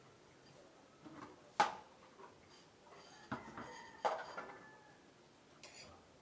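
A spoon knocking and scraping against a plate while eating: a few separate clinks, the loudest about one and a half seconds in, the later ones with a short ring.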